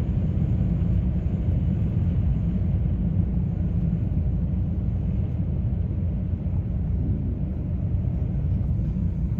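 Steady low vehicle-engine rumble heard from inside a car cabin, even and unchanging.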